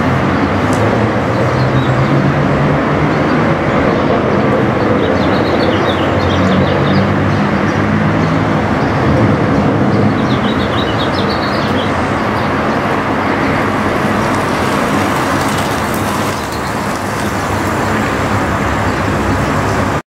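BMW F8X M3/M4's twin-turbo 3.0-litre straight-six heard through a Fi Exhaust valved cat-back and catless downpipe as the car drives, the engine note rising and falling.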